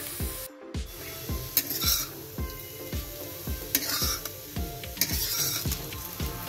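Metal spatula scraping and tossing sliced potatoes with cumin seeds and dried red chillies as they fry in oil in a metal pan, about three scrapes a second with bursts of sizzling. The crackle is the sign that the potatoes have turned crisp. The sound drops out briefly about half a second in.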